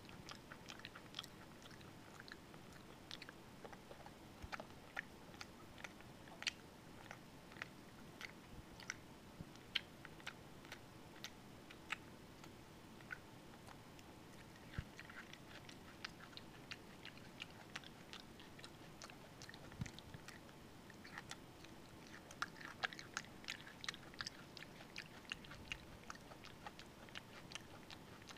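A long-tailed (java) macaque eating soft soup: faint, wet chewing with lip smacking, a steady run of irregular small clicks that comes thicker near the end.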